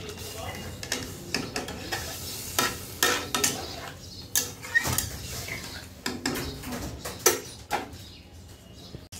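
Metal spatula stirring a watery curry in an aluminium kadai, with irregular clinks and scrapes against the pan's sides. The stirring thins out near the end.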